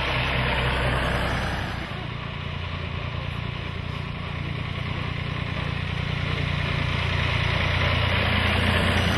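Two tractor engines running as the tractors drive past close by, one after the other. The first is loudest about a second in and then fades, and a second, lower-sounding tractor engine grows louder towards the end as it goes by.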